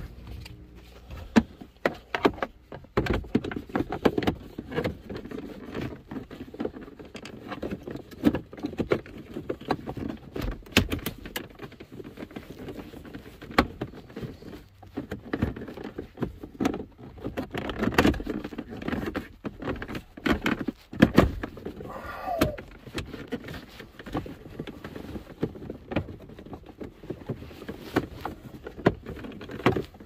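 Irregular clicks, knocks and rustling from hands handling and refitting plastic steering-column trim, with clothing brushing close to the phone's microphone.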